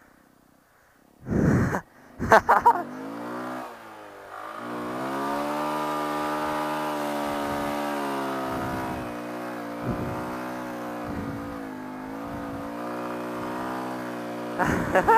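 Honda Grom's 125cc single-cylinder engine revving up and then held at steady high revs for about ten seconds. A couple of loud knocks and rattles come just before the engine note rises.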